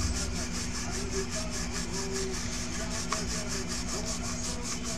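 Quick, even back-and-forth scrubbing strokes, about seven a second, of a brush on a circuit board; they stop abruptly at the end.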